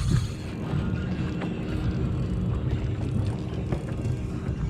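A boat's engine idling: a steady low hum, with a few faint sharp clicks on top.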